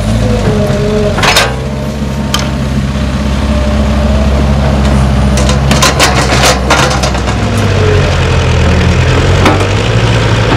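Caterpillar 312B tracked excavator's diesel engine running steadily as the hydraulics work the boom and bucket, with a wavering whine over the engine hum. A few sharp knocks come early, and a cluster of clattering knocks comes about six seconds in as a bucketful of soil is dumped into a small truck's bed.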